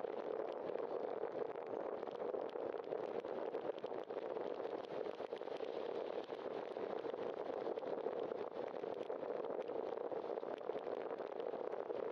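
Steady rushing noise of a bicycle ride along wet pavement: wind on the microphone and tyre hiss, with no distinct events.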